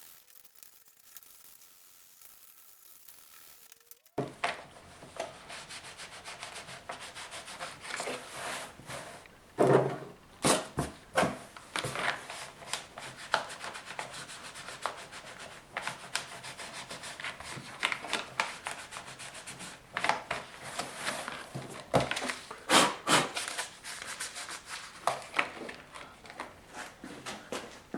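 Used 220-grit sandpaper rubbed by hand over thin plastic, roughing up the surface around a crack: irregular scratchy back-and-forth strokes that start about four seconds in, after a quiet moment.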